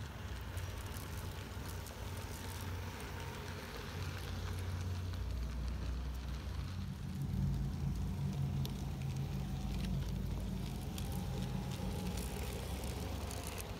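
A 16 mm scale garden-railway train running: a model locomotive and its small wagons rolling along the track with a low, steady rumble that grows louder in the middle as the train passes close.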